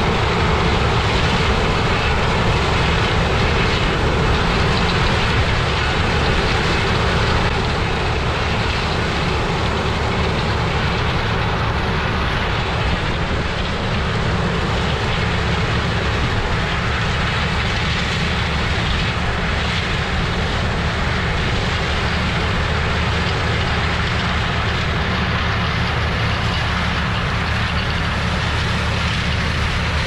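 New Holland CR twin-rotor combine harvesting corn, running steadily: a deep, even engine hum under a constant rushing noise from the machine at work.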